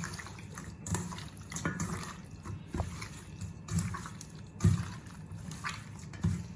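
Hands kneading raw boneless chicken chops in a wet marinade of soy sauce, herbs and spices: irregular soft wet squelches and slaps, roughly once a second.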